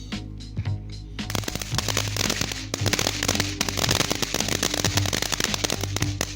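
Dense, rapid crackling of fireworks that starts about a second in and runs on over background music with a steady beat.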